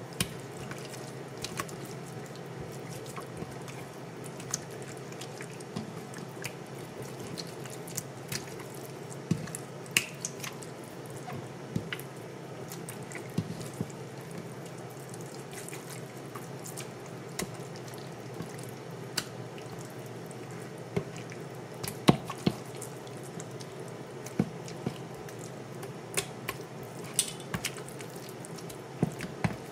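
Bare hands mixing and massaging wet seasoning into raw fish fillets in a bowl: irregular soft wet squishes and clicks, over a steady low hum.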